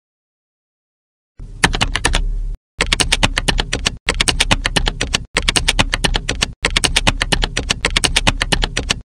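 Rapid computer keyboard typing: quick key clicks in five runs with short breaks, starting about a second and a half in.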